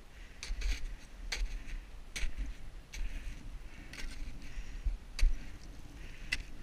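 Boots crunching into snow while climbing at about one step a second, each step a short crisp crunch, with the ice axe planted into the snow alongside. A low wind rumble on the microphone runs underneath.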